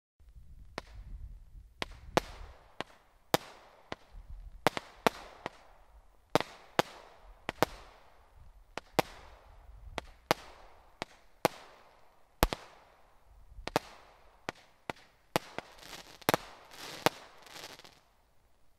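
Zeus Fireworks 'Deadeye' barrage cake firing shot after shot, sharp reports at about two a second, each trailing off in a short fading tail. The reports start about a second in and stop shortly before the end.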